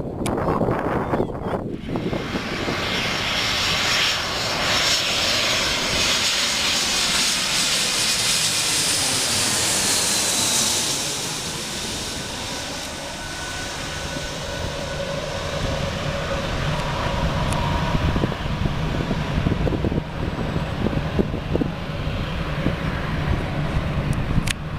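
Jet airliner engines passing by. A loud rush with a high whine is strongest for the first ten seconds or so, then falls in pitch and eases, leaving a lower rumble.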